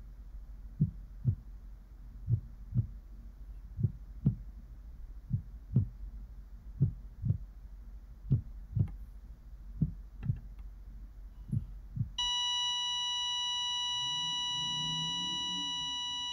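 Heartbeat sound effect: slow low double thumps, lub-dub, about one pair every one and a half seconds. About twelve seconds in it gives way to a steady continuous heart-monitor flatline beep that slowly fades.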